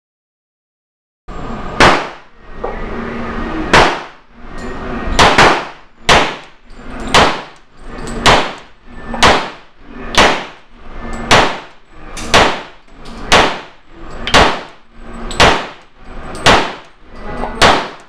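Glock 22 .40 S&W pistol firing 180-grain reloaded rounds: a steady string of loud shots, about one a second, beginning about a second in, each trailing off in the echo of an indoor range.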